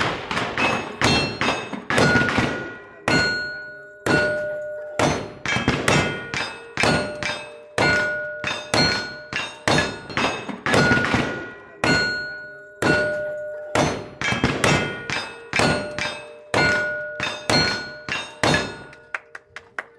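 A rapid string of gunshots, about one to two a second, from a cowboy action shooter's guns. Most shots are followed by the ringing clang of struck steel targets. The string ends just before the close.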